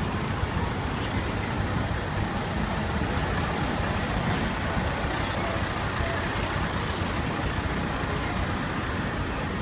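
Parked aerial ladder fire truck's diesel engine idling, a steady low running noise with street traffic behind it.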